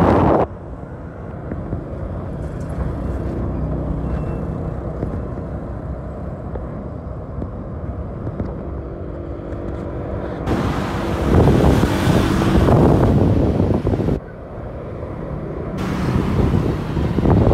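Wind buffeting the microphone in gusts, loudest from about ten and a half to fourteen seconds in and again near the end, over a steady low engine rumble with a faint hum in it.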